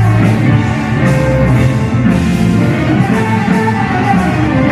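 Live band music: a woman singing into a microphone over keyboard, drum kit and bass guitar, amplified through stage speakers.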